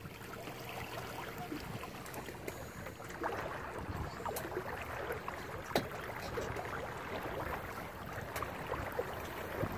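Water swishing and lapping along the hull of a small O'Day Daysailer sailboat under way, steady and fairly quiet, with a few faint knocks.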